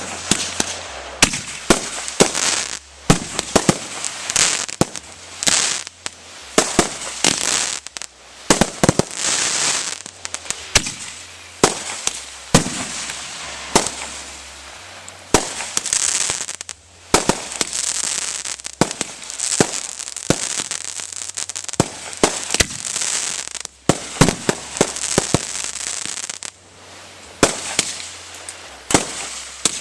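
Fireworks display: many shells bursting in quick, irregular succession, sharp bangs with a crackling hiss between them.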